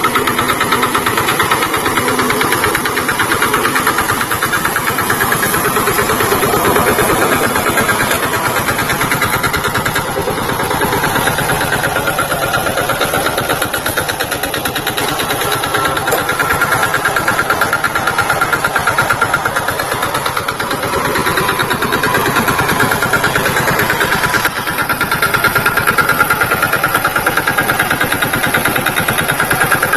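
VST Shakti tractor's diesel engine running steadily.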